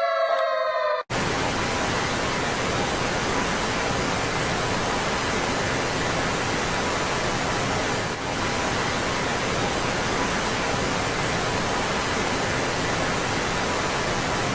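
A pitched tone gliding slightly downward cuts off abruptly about a second in. Then comes a steady, loud hiss of static noise with no pitch or rhythm.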